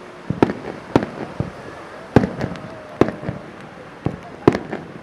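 Star mine fireworks display: aerial shells bursting in an irregular run of booms and cracks, about one loud burst a second with smaller ones between, the loudest about two seconds in and again near the end.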